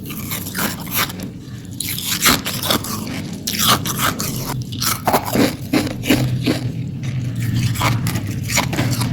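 Hard ice being bitten and crunched between the teeth, close to the microphone: a rapid, irregular run of sharp cracks and crunches, with denser clusters of crunching at several points.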